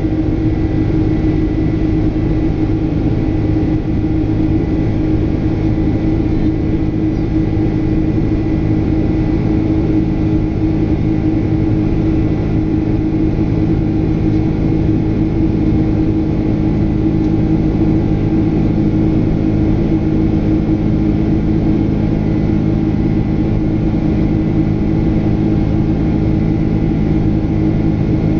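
Boeing 767's General Electric CF6 turbofan engines running steadily, heard inside the cabin: a constant low roar with several steady hum tones and a faint high whine.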